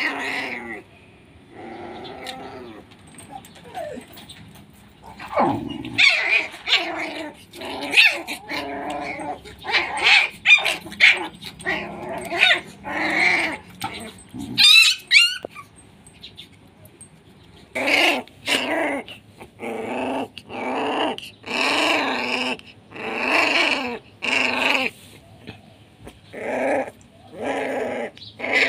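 Pitbull puppy yapping and growling while the adult dog mouths it: short high yaps with growls between, scattered at first, then a quick run of them about one a second in the last ten seconds.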